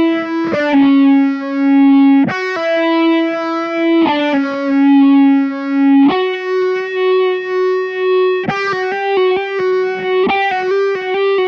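Electric guitar played through a Roland AP-7 Jet Phaser with fuzz: long held notes, rich and distorted, each swelling and fading as the phase sweeps, changing pitch about every two seconds. From about eight seconds in it plays a run of shorter, quicker notes.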